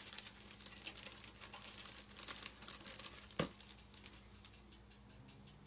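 Clear plastic bag crinkling and rustling as plastic model-kit sprues inside it are handled, with one light knock about three and a half seconds in; the crinkling then thins to faint ticks.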